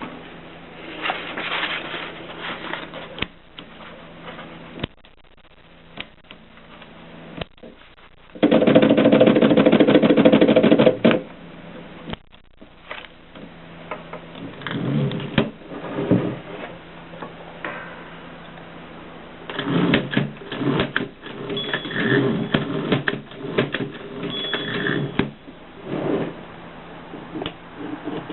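Mercedes manual typewriter in use: scattered sharp mechanical clacks, a loud continuous rattle lasting about two and a half seconds roughly a third of the way in, and a dense run of rapid clacks in the last third.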